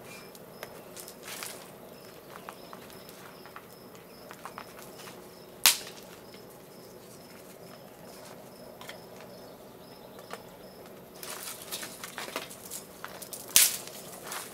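Small kindling fire crackling in a wood-fired kiln's firebox, with scattered sharp snaps: a loud one about six seconds in, a busier run of crackles later, and another loud snap near the end. An insect chirps steadily about twice a second in the background.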